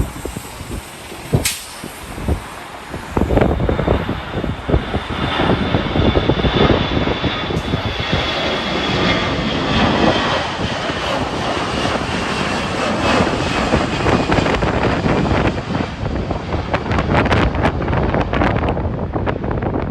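Jet airliner's engines roaring past, swelling in about three seconds in, with a high whine that falls slightly in pitch as it goes by. Strong wind buffets the microphone throughout, in gusts near the end.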